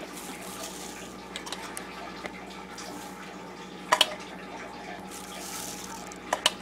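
Spices being shaken out over chopped vegetables: a faint steady hiss with two pairs of sharp clicks, about four seconds in and again near the end.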